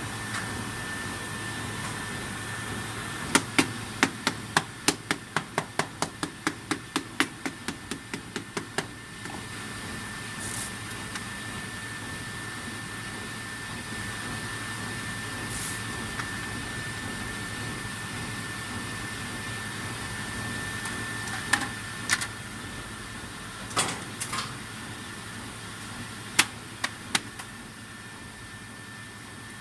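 PCB drilling machine running, with a steady high whine over a low hum. A few seconds in comes a quick run of about twenty sharp clicks, about four a second, then single clicks now and then.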